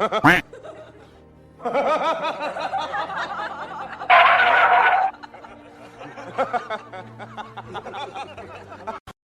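Background music with a person laughing in quick repeated bursts. The laughter is loudest for about a second, around four seconds in, and everything cuts off suddenly near the end.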